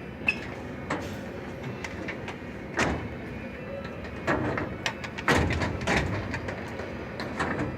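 Steel tool chest being handled: sharp metal clicks and clunks, and about five seconds in a drawer sliding on its runners for about a second.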